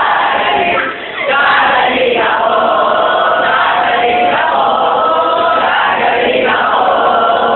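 A large group of students' voices singing together in unison, in drawn-out phrases with short breaks between them.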